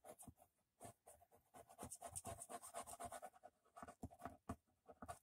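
Faint scratching and rubbing as the fine metal nib of a squeeze glue bottle is drawn over a small strip of cardstock on a craft mat, with small taps of paper being handled.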